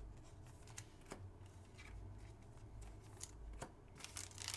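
Trading cards being handled: a few faint, soft clicks as cards are slid and tapped together.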